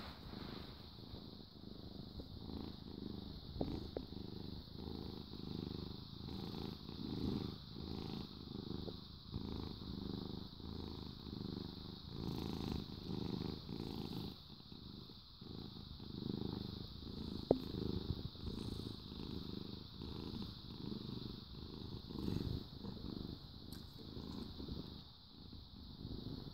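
Tabby cat purring steadily close to the microphone, the purr swelling and fading with each breath about once a second. A single sharp click about two-thirds of the way through.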